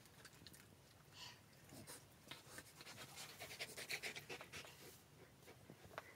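Golden retriever panting faintly, with soft rustles and small clicks as it rolls and mouths torn cushion fabric and stuffing, a little louder through the middle.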